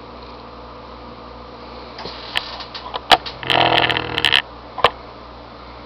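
Spectacled caiman biting and chewing chopped mackerel: a cluster of sharp clicks and snaps starting about two seconds in, with a noisy burst of nearly a second in the middle, over a steady background hum.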